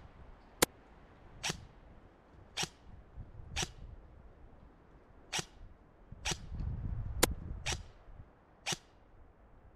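ICS M4 CXP Sirius airsoft electric rifle firing nine single shots at uneven intervals of about a second, each a sharp crack. Wind rumbles on the microphone, strongest around seven seconds in.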